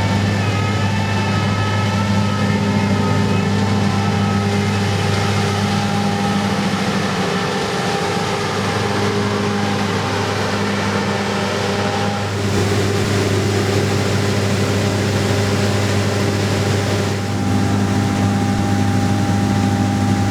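John Deere S680i combine harvester running steadily under load while harvesting rice: a constant low engine drone with several steady tones over a haze of machine noise, shifting slightly about twelve and seventeen seconds in.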